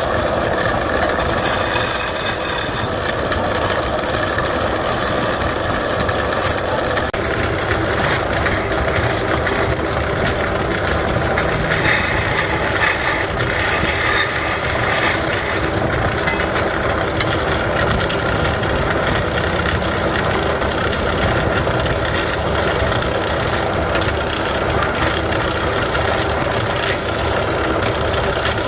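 Wood lathe running steadily, with the turning tool cutting the spinning wood. The tone of the cut changes about a quarter of the way in, and there is a brighter, harsher stretch near the middle.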